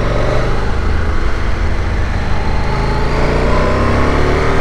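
KTM 1290 Super Adventure's V-twin engine pulling under acceleration, its pitch rising steadily through the second half.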